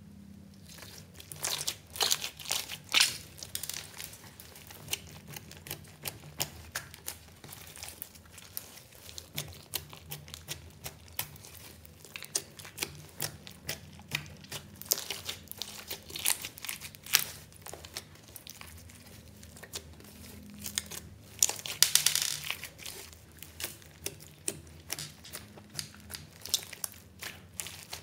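Hands stretching, poking and kneading a large mass of glossy homemade slime with small beads mixed in: a run of sticky clicks, pops and crackles. It comes in denser flurries a couple of seconds in and again about three quarters of the way through.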